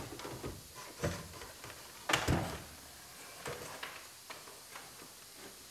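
Plastic dash pad being handled and shifted inside a car's cabin, giving a few knocks and scrapes against the interior trim, the loudest knock about two seconds in.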